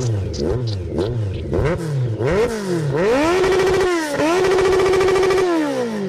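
Motorcycle engine revving: a quick series of short throttle blips, then the revs climb and are held high, dip briefly about four seconds in, are held high again and fall back near the end.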